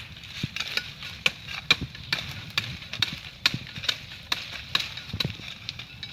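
A hand tool striking repeatedly, in a steady chopping rhythm of about two sharp strikes a second.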